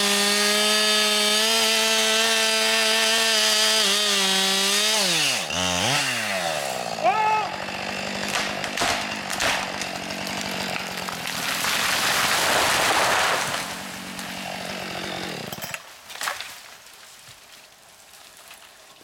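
Husqvarna 576 XP two-stroke chainsaw running at full throttle in the felling cut, then throttled back about five seconds in so its pitch drops to idle. The red pine then gives way with cracking and a long crash of its trunk and crown coming down through the surrounding branches while the saw idles, and the saw cuts off near the end.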